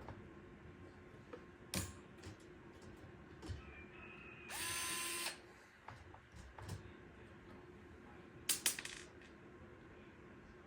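Fanttik cordless electric screwdriver running in one short burst of under a second, about halfway through, backing a screw out of the fan grill. A few sharp clicks and knocks are heard around it as the screws and grill are handled.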